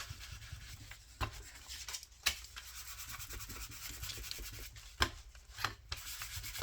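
Paper being distressed by hand: repeated rubbing and scraping strokes across its surface, with a few sharper taps or clicks about one, two and five seconds in.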